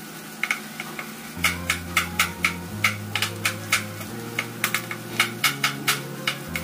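Knife cutting a tomato on a wooden chopping board: a run of quick, regular chops, about three to four a second.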